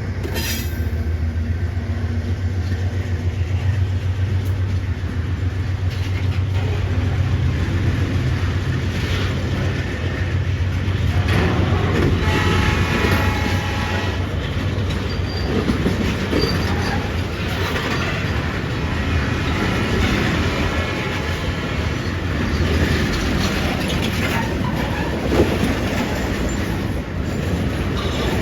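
Loaded fuel tank cars of a long freight train rolling past, their wheels clacking steadily over the rail joints. A low diesel engine drone from the locomotives fades out over the first ten seconds, and a brief high-pitched tone sounds about twelve seconds in.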